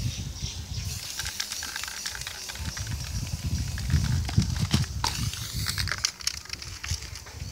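Aerosol spray-paint can in use: quick, irregular clicks with short bursts of hiss.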